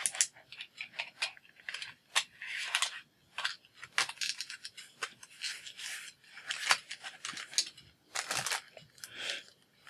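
Handling noise from a pack of highlighters and its packaging on a wooden tabletop: an irregular run of short clicks, taps and rustles.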